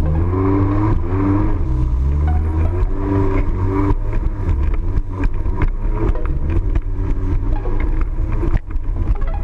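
Jet ski engine revving up and down several times, then running at speed across choppy water, with water slapping against the hull and spray.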